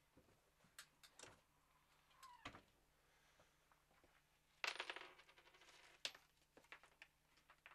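Faint scattered light clicks and taps of small hard objects being handled, with a short run of rapid clinks about halfway through.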